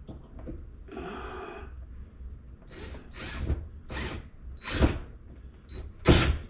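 Drill driving a screw home in a series of short trigger pulls, each a brief whine, the last one loudest.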